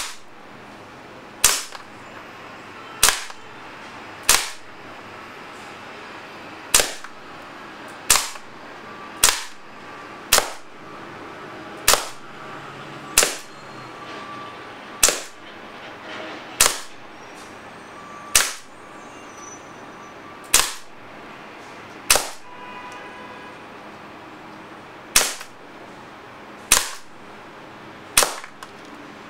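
WE Browning Hi-Power gas blowback airsoft pistol firing on green gas: about eighteen sharp pops, one at a time, a second or two apart, each the gas discharge with the slide blowing back, until the magazine is emptied.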